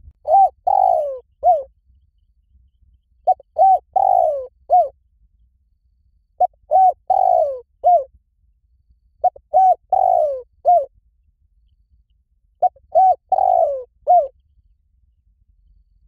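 Spotted dove cooing: five phrases about three seconds apart. Each phrase has one or two short notes, a longer falling coo and a short closing note.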